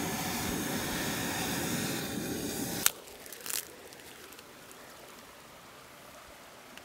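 A handheld gas torch's flame hissing steadily, then shut off abruptly just under three seconds in. After that only the quiet, steady rush of the stream remains, with one brief noise.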